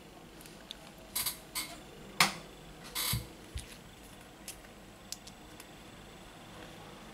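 Light clicks and brief rustles of a smartphone display module being handled and turned over in the hands, the sharpest click a little over two seconds in.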